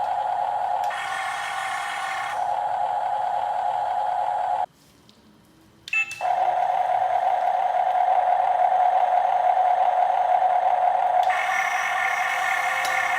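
Huina RC excavator's electric motors and gearboxes whining steadily as it works, cutting out for about a second near the middle and starting again with a click, a little louder.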